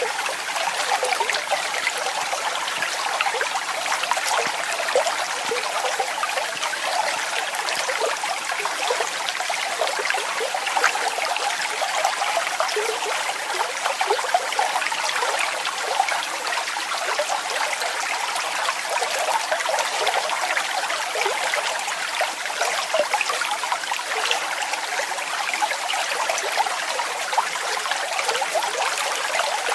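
Waterfall: water falling and splashing steadily, a continuous splashing hiss with many fine splashes and little low rumble.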